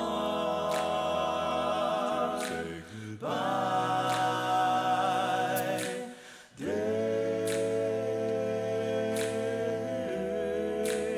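Background music: voices singing long held chords in three phrases, with a light tick about every second and a half.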